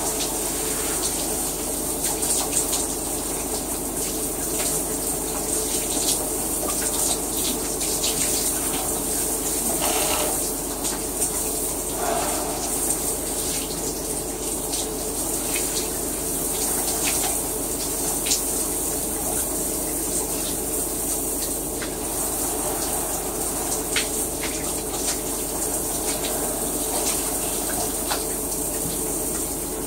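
Shower running: a steady spray of water with scattered small ticks and splashes of drops.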